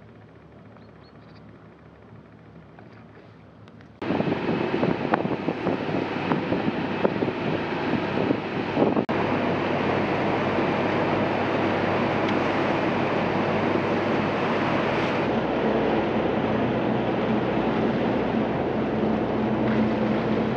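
Faint outdoor ambience, then about four seconds in a sudden switch to loud wind on the microphone and rushing water over the steady drone of a small military boat's engine running under way.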